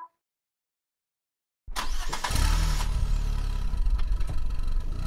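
Silence for nearly two seconds, then a loud, low engine-like rumble starts suddenly and runs on steadily: a sound effect laid over the loading animation.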